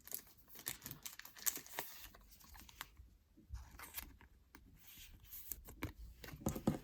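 Faint rustling and irregular soft clicks of trading cards being handled, with a card being slid into a plastic sleeve.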